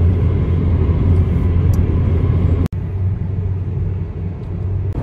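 Steady low rumble of road and engine noise inside a moving car's cabin at highway speed. About two and a half seconds in the sound drops out for an instant, then the rumble carries on.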